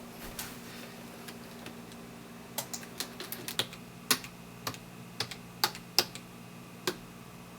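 Irregular sharp clicks, about a dozen, starting a couple of seconds in, over a steady low hum.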